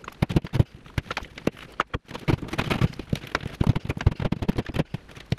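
Dense, irregular crackling and snapping as water-damaged ceiling drywall is broken away by hand at the edge of the hole.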